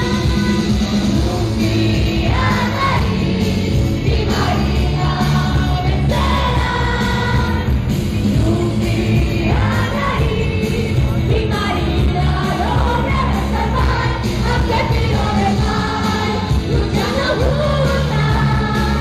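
Live rock band with electric guitars and drums playing an anime opening song while several singers sing together into microphones over the PA.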